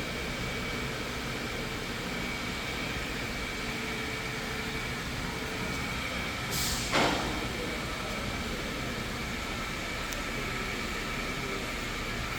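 Steady mechanical hum with a thin high whine running under it, and one brief whoosh about six and a half seconds in that falls in pitch.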